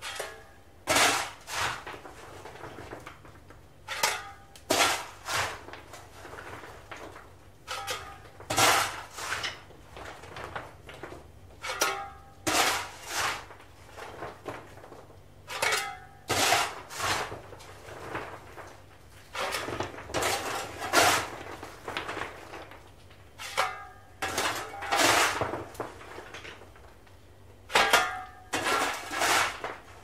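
A stoker shovelling coal into a paddle steamer's boiler furnace: a metal shovel scraping into coal and clattering as it throws, in bouts of two or three strokes every few seconds, over a low steady hum.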